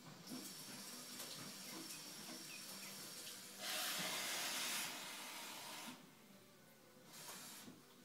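Kitchen tap running as a cup is filled with cold water, faint and steady, with a louder gush for just over a second a little past the middle and a brief splash near the end.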